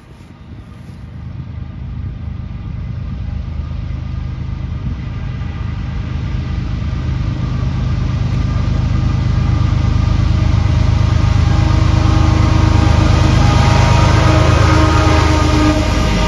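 Diesel locomotives heading a CSX intermodal freight train approaching and passing close by. The heavy engine rumble builds steadily over about ten seconds and is loudest just before the locomotives go past.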